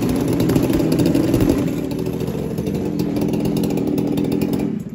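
Husqvarna 390 two-stroke chainsaw engine running loudly and steadily, easing slightly about a second and a half in, then cutting off suddenly near the end.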